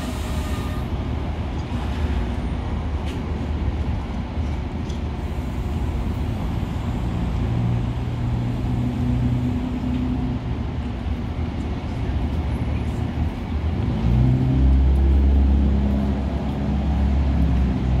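Steady low rumble of a standing Metra commuter train's idling diesel locomotive, growing louder for a few seconds near the end, with passengers' footsteps and murmur along the platform.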